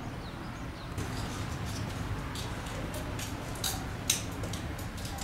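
An irregular run of sharp clicks and ticks, starting about a second in and loudest a little past four seconds in, over a low steady rumble.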